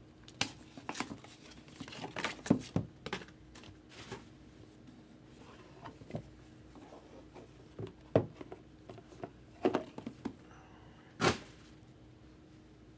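Trading-card packaging being opened and cards handled: irregular tearing, crinkling and tapping sounds, with a longer rip near the end.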